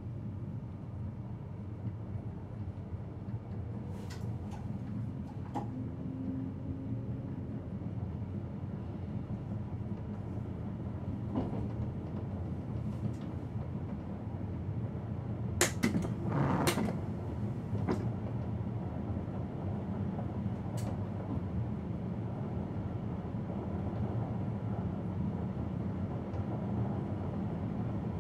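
Electric train running at speed, heard from inside the driver's cab: a steady low rumble with scattered sharp clicks and knocks, the loudest cluster about halfway through.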